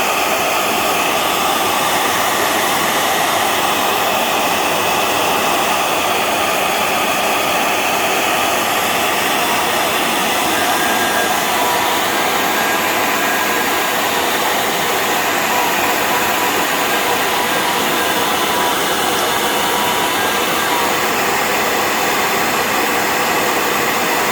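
Hair dryer blowing steadily, heating a yoke protector to soften it for shaping.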